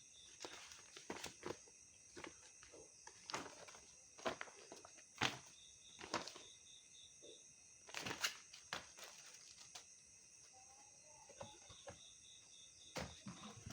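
Scattered quiet clicks, taps and rustles, like objects and packaging being handled by hand, with a sharper knock about five seconds in and another about eight seconds in.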